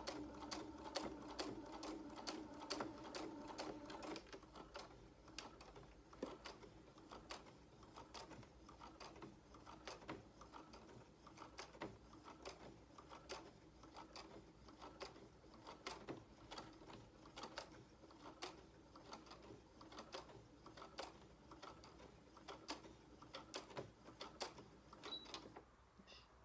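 Sewing machine stitching canvas, faint, with its motor humming steadily for about the first four seconds and then running more softly, with repeated clicking of the needle mechanism throughout.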